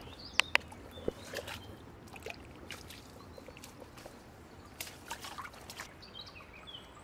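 Quiet streamside ambience: a steady trickle of running water, a few short high bird chirps, and scattered sharp clicks and knocks close by, the loudest two about half a second in.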